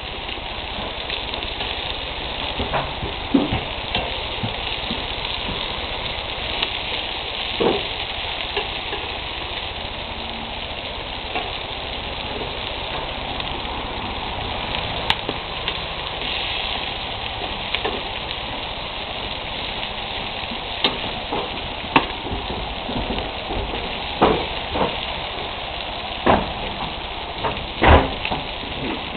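Bacon-wrapped quail sizzling on a hot barbecue grill: a steady crackling sizzle with sharp pops of spitting fat every few seconds, more frequent near the end.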